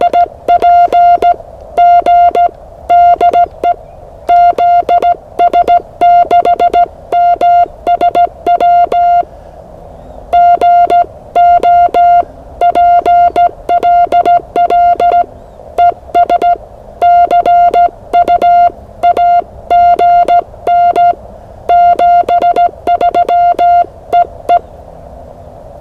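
Ham radio CW (Morse code) tone keyed in dots and dashes at one steady, fairly high pitch, with faint receiver hiss between the elements. The keying breaks off for about a second nine seconds in, then resumes and stops just before the end.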